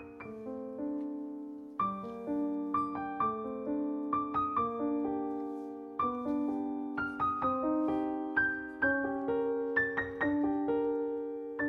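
Background piano music: a melody of separate struck notes that ring and fade over held lower notes.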